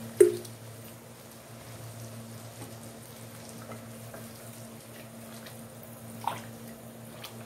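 Water poured from a glass jug into a hot pan of mutton curry, then the thinned curry bubbling over a steady low hum, with a sharp clink just after the start and a lighter tap about six seconds in.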